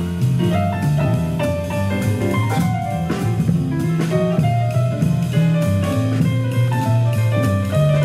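Jazz band playing, with a drum kit and a bass line moving under the melody.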